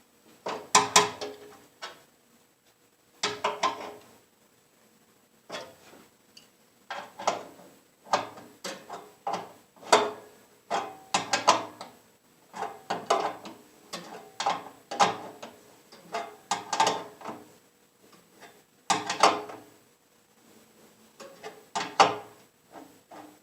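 Smokestack mounting bolts being tightened down by hand against a felt gasket, heard as repeated short bursts of clicking and rasping from the tool, with brief pauses between strokes.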